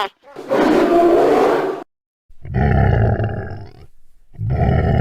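Fictional dragon roar and growl sound effects. A rough roar lasts about a second and a half. After a short gap come two deep, rumbling growls.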